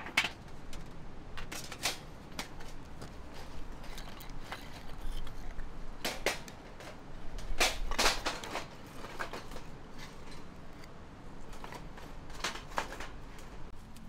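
A series of separate metal clinks and wooden knocks: the thin steel plates of a folding camp fire box being handled and fitted together, then pieces of split firewood knocking against each other and the metal as they are stacked inside. The busiest clatter comes around the middle.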